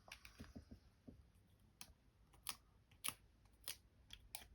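Faint, irregular small clicks and light taps from handling a GoPro camera while dabbing dust off its rear screen, with about five sharper clicks in the second half.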